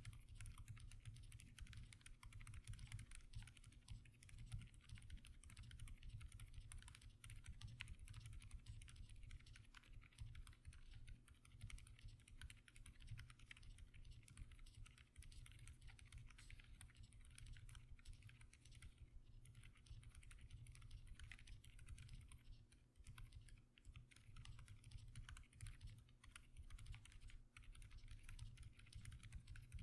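Quiet, continuous typing on a mechanical keyboard fitted with Akko Fairy silent linear switches, whose stems carry silicone dampeners on the rails: a fast, steady run of soft, muted keystrokes.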